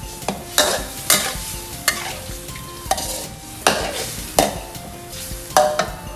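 A spatula scraping and knocking against a pan as shrimp with garlic and seasoning sauce are stir-fried, with a sizzle underneath. The strikes come irregularly, about one every half second to a second.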